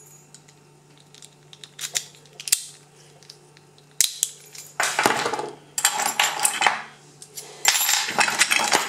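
Metal padlocks, keys and lock cylinders being handled: a few light clicks, a sharper click about four seconds in, then bursts of metallic clinking and clattering as the pieces knock together. A low steady hum runs underneath.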